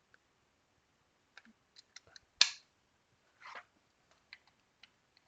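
Small plastic parts of a handheld game console being handled: scattered light clicks and taps, one sharper, louder click about halfway through, and a short scrape a second later.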